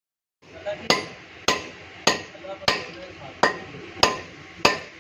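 Hammer blows on metal at a steady pace, seven strikes about two every second, each with a short ringing after it, starting after a brief dead silence.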